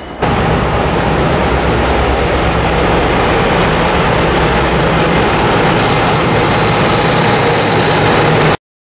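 DB Schenker Class 60 diesel locomotive passing at close range, its engine running loud and steady with a low hum and a thin high whine on top. The sound starts suddenly just after the start and cuts off abruptly near the end.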